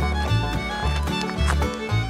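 Background music: an upbeat country or bluegrass-style tune with fiddle over a steady bass line.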